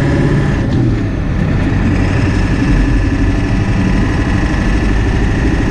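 1997 Ford F-350 pickup's engine running steadily, a low even rumble.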